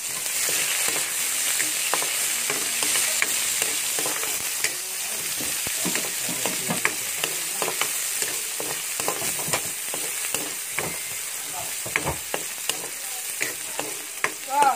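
Chopped onion and garlic sizzling in hot oil in a wok, stirred with a metal spatula that scrapes and clicks against the pan in many short strokes, with a brief squeal near the end.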